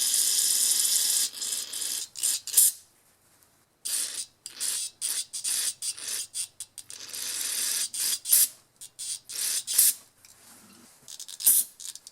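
Aerosol carburetor cleaner sprayed through the jets and small passages of a small four-stroke engine's carburetor: a hissing spray in one long burst at the start, then many short bursts with little clicks between them.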